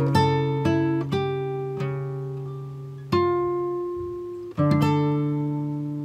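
Background music of slow plucked notes, each ringing out and fading before the next.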